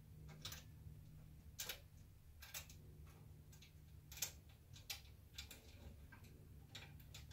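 Faint, irregular metal clicks and ticks as an M6 screw and the rack shelf are handled and fitted by hand against the rack's metal rail, over a low steady hum.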